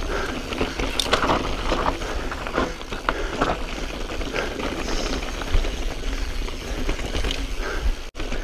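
A Specialized Stumpjumper S-Works 27.5 full-suspension mountain bike rolling fast downhill over loose rock: the tyres crunch over gravel and stones, and the bike rattles with many small knocks. The sound cuts out for an instant near the end.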